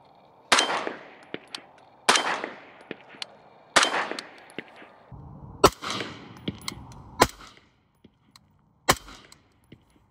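Suppressed 5.56 short-barrelled rifle with a Surefire RC3 low-back-pressure suppressor firing single shots about a second and a half apart: three shots, then three more, each a sharp crack with a short echoing tail.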